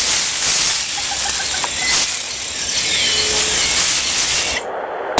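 Rainforest canopy ambience: a dense high hiss with scattered bird calls, including a short falling whistle about three seconds in, and rustling of palm fronds and fruit stalks as a monkey moves through them. The high hiss cuts off abruptly near the end.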